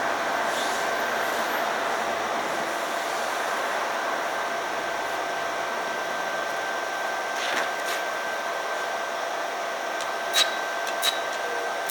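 Stick (shielded metal arc) welding with a 3.2 mm covered electrode on a Pro 200i portable inverter welder: a steady frying hiss of the arc, with a few sharp pops and crackles toward the end.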